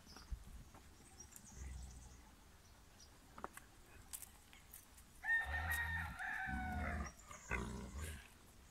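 A rooster crowing once, a single call a bit over a second long, about five seconds in, falling slightly in pitch. Low rumbling noise comes with it and again briefly near the end.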